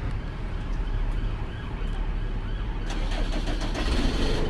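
Alexander Dennis Enviro200 single-deck bus's diesel engine idling steadily after being started. About three seconds in, a rise of hiss and wavering tones joins it.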